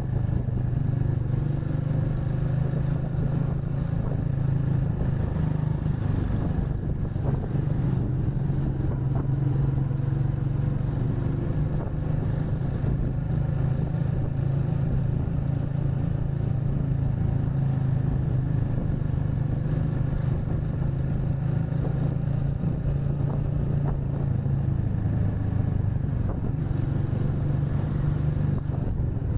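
Motorcycle engine running at a steady, even pitch while riding, with constant road noise.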